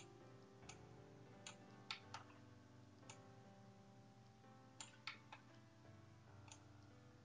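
Faint background music with soft held notes, over which a computer mouse clicks about nine times at uneven intervals, some in quick pairs.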